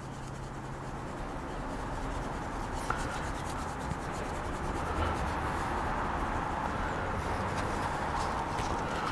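Dry barbecue rub shaken from a shaker bottle onto a slab of pork belly: a steady sandy hiss of granules with faint rapid ticks, slowly growing louder.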